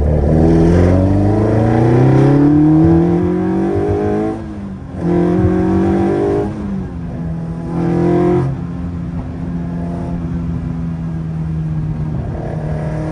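Opel Kadett C's C20XE 2.0-litre 16-valve four-cylinder engine heard from inside the cabin, pulling with a rising pitch for about four seconds. It drops away briefly as a gear is changed, surges twice more, then settles to a steady cruise.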